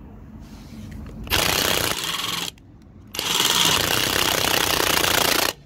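Parkside PASSP 20 Li A1 cordless impact wrench hammering on a rusted wheel nut in two bursts, the first about a second long and the second over two seconds. Each burst stops abruptly when the trigger is released.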